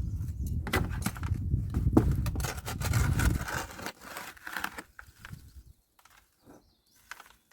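Crushed ore being shaken in a kitchen strainer: a dense gritty rattling full of small clicks for about three and a half seconds, then thinning to a few light clicks and rattles.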